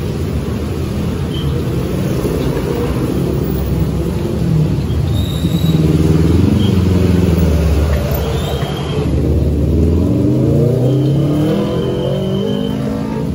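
Motor vehicle engines running and accelerating, their pitch rising, loudest in the middle and climbing again near the end.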